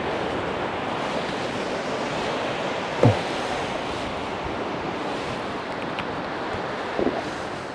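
Steady wash of sea surf, with some wind. A brief sound falling in pitch about three seconds in, and a fainter one near the end.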